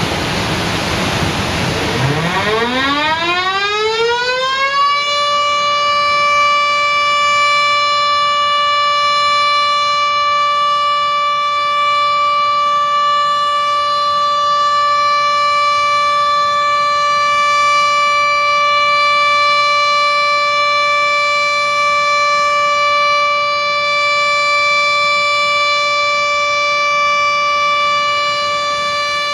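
Dam-discharge warning siren winding up: its pitch climbs over the first five seconds or so, then holds at one steady wail. It is the alarm that warns people downstream that a dam is releasing water in an emergency.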